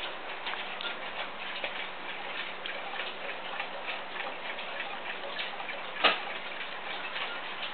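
Rhythm alarm clock ticking steadily, several ticks a second, with one louder click about six seconds in.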